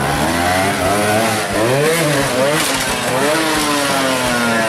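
Trials motorcycle engine revving up and down several times, the pitch climbing and dropping with each twist of the throttle and sliding down in a long fall near the end.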